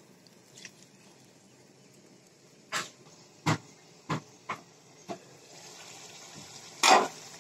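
Several sharp metal clinks and knocks from an aluminium cooking pot and its lid. After the lid is lifted, a soft sizzle of chicken curry simmering comes up, with a louder clank near the end.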